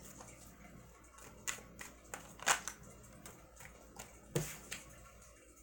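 Tarot cards being shuffled and handled at a table: a few soft, short card taps and snaps, the loudest a little past four seconds in as a card comes off the deck onto the table.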